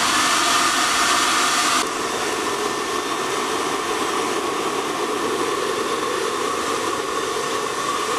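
Electric blower switched on and blowing air steadily into a homemade blast forge to fan a stick fire and build heat, with a faint hum. It gets a little quieter and duller about two seconds in.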